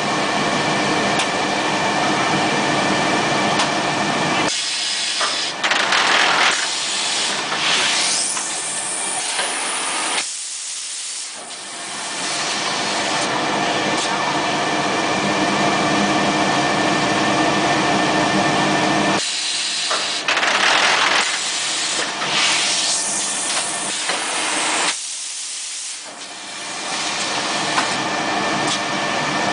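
Pneumatic vacuum forming machine for plastic cups running with a steady mechanical noise. Twice, about 15 seconds apart, it gives several seconds of loud compressed-air hissing, a repeating machine cycle.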